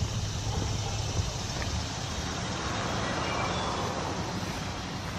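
A car going by on a paved road, its tyre and engine noise swelling and fading around the middle, with a few faint bird chirps.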